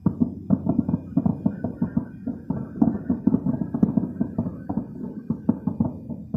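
Aerial fireworks display: a rapid, uneven barrage of shell bursts going off several times a second.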